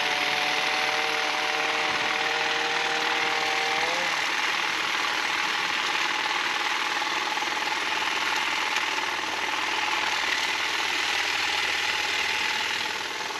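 Cordless electric chainsaw running at full speed while trimming tree limbs. For about four seconds a steady motor whine sits over the rasp of the chain; then the whine fades and the rough rasp carries on, easing slightly near the end.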